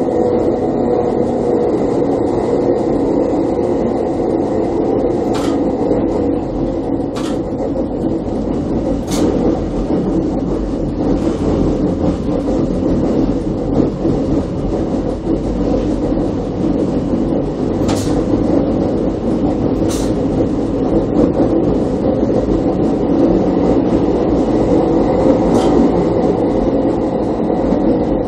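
The electric railcar ABe 4/4 641 running along street track, heard from its driver's cab: a steady hum of traction motors and rolling wheels. A few sharp clicks come at intervals.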